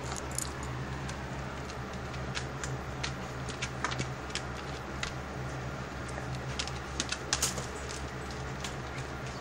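Irregular clicks and small scrapes of cat litter granules as a cat rolls and paws in a litter box, with a few quick clusters of clicks, over a steady low hum.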